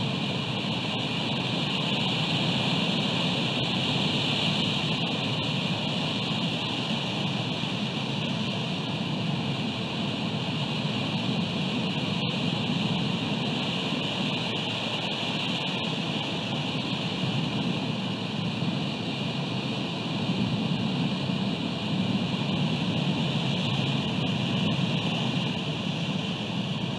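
Steady rushing noise of wind and ocean surf on an exposed outdoor nest-camera microphone, even and unbroken throughout.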